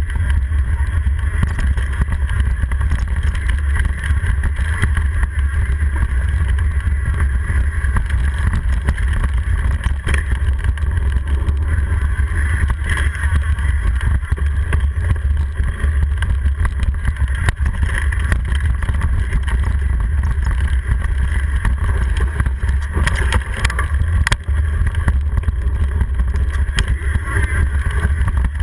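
Steady low rumble of wind and trail vibration on an action camera fixed to a mountain bike riding fast down rocky singletrack, with one sharp knock late on.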